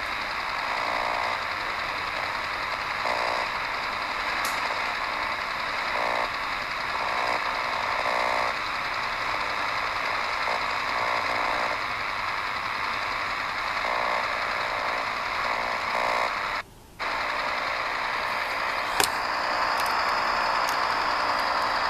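DEGEN DE1103 shortwave receiver in SSB mode, tuned across the 17 MHz band: steady hiss and static with a faint rapid pulsing, which the uploader takes for a light 'Woodpecker' radar pattern. The sound cuts out for a moment about three-quarters of the way through, and a sharp click follows about two seconds later.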